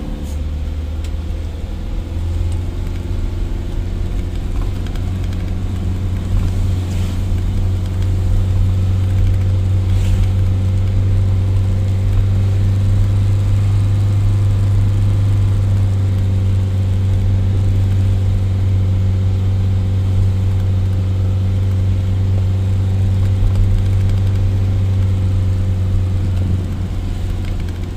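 Loaded truck's diesel engine running at steady revs, its note growing louder over the first several seconds, holding steady, then easing off near the end.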